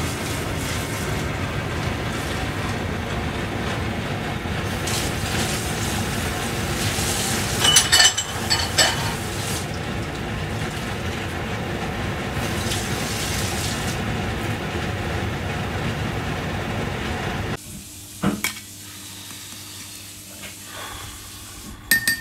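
Clams cooking in a wok of boiling broth on a gas burner: a steady, loud bubbling and hissing, with a few sharp knocks about eight seconds in. The noise cuts off suddenly a few seconds before the end, leaving a much quieter low hum and a couple of knocks.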